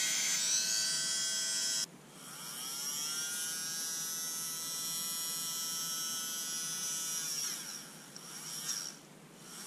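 Small brushed DC motor from a Panasonic EY503 cordless screwdriver running with a high whine. It cuts out about two seconds in, spins back up with a rising whine, runs steadily, then slows and stops near the end. It does not start straight up again reliably, which the owner takes as a sign that something is not right with the motor.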